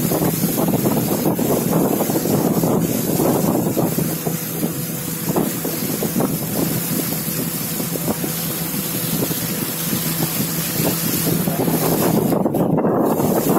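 Motorboat's outboard engine running steadily under way, with wind buffeting the microphone and rushing water.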